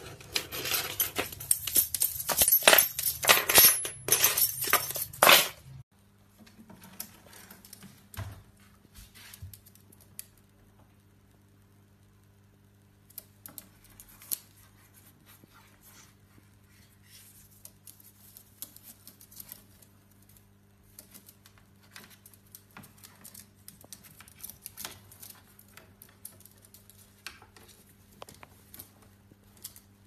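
Rapid metallic clinking and scraping of a small metal object that a parrot carries and drags on a tiled floor, cutting off suddenly about six seconds in. Then faint scattered taps and clicks over a low steady hum.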